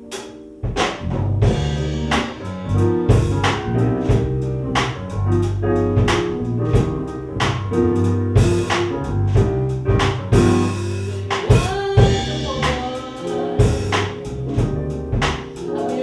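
Live jazz band playing: electric keyboard and drum kit come in together less than a second in, after a few quiet held chords, and keep a steady groove with drum hits throughout. A woman's voice sings over it in places.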